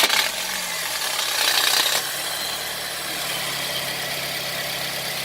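Car engine running just after being started, settling from a slightly higher, louder run into a steady idle about two seconds in.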